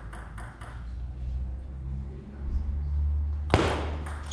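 Table tennis ball clicking a few times, then a low steady hall hum, broken about three and a half seconds in by a sharp, loud ball strike and another click just before the end.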